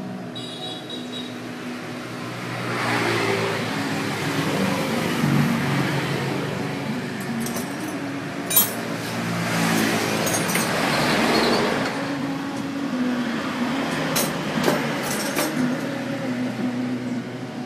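Road traffic: motor vehicles passing by, their engine noise swelling and fading twice over a steady engine hum, with a few sharp clicks.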